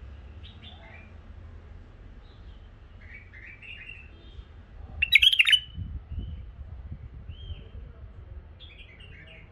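Caged bulbuls calling in short chirps and warbled phrases, with one much louder call about five seconds in. Low rumbling follows that loud call.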